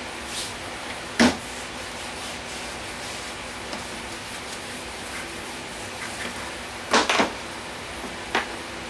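Hands rubbing and pressing a black pad down onto a plywood board freshly coated with spray adhesive. A sharp knock comes about a second in, and a few more near the end, as a hand tool is handled on the wooden bench.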